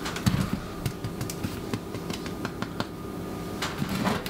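Crusty sourdough loaves being handled and set down on a wire rack: scattered light knocks and taps, over a steady low hum.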